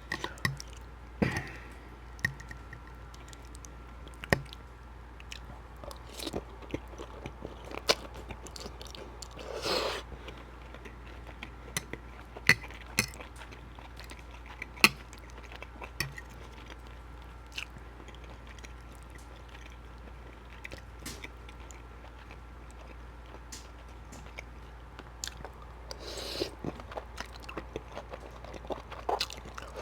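Close-miked chewing and mouth sounds of someone eating creamy shrimp Alfredo pasta: wet smacks and sharp clicks at irregular intervals, over a steady low hum.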